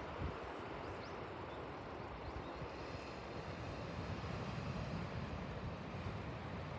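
Steady roar of surf breaking on a beach, with wind rumbling on the microphone.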